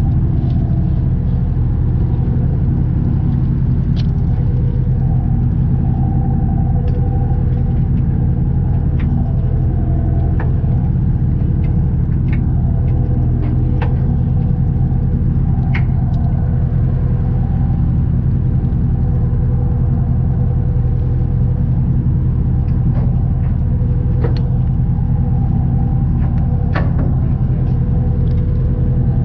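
Fishing boat's engine running steadily under way, a constant low drone, with faint scattered clicks and knocks over it.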